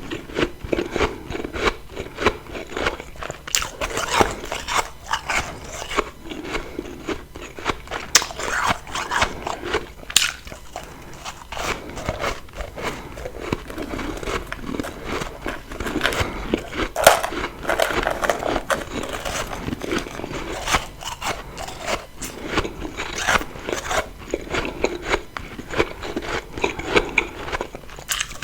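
Close-miked biting and chewing of refrozen freezer frost: a dense run of crisp, crackling crunches, several a second, with louder bites every few seconds.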